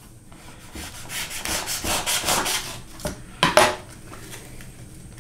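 A knife scraping and slitting through paper packets of powdered sauce mix on a wooden counter, a run of short rasping strokes. A louder, sharper scrape or rip comes about three and a half seconds in as a packet is opened.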